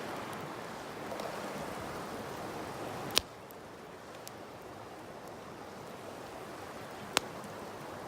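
River water flowing with a steady rush. Two sharp clicks sound, about three seconds in and again near the end, and the rush is a little quieter after the first.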